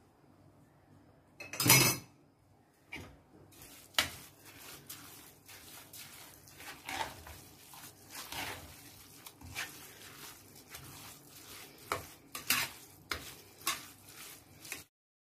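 A spoon stirring and scraping wet raw-rice mahshi stuffing in a large pan, with repeated knocks against the pan's side. There is a single louder clank just before two seconds in, and the sound cuts off abruptly near the end.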